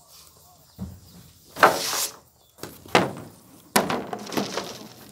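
Thin plywood sheets being handled and dropped: a low thud, then a loud flexing scrape and clatter, and two sharp knocks, the second followed by about a second of rattling.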